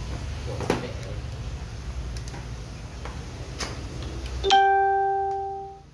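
A few light taps and clicks from cardboard boxes being handled, over a steady low hum. About four and a half seconds in, a single loud ringing note strikes and fades away over about a second, and the background hum stops at the same moment.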